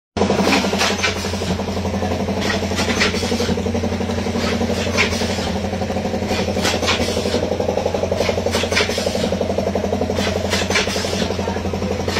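Automatic snack-pouch packing machine running with a steady hum and a fast rattle, while plastic snack packets crinkle now and then as they are handled.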